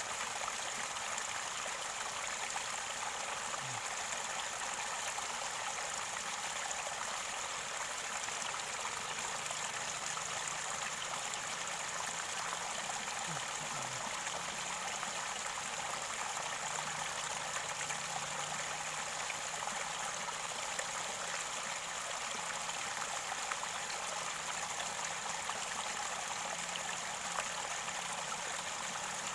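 Mountain river water gurgling near its source: a steady, unbroken flow of water.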